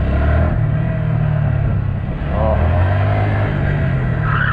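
Honda Grom's small single-cylinder engine revving under load. The revs sag about two seconds in, then climb again.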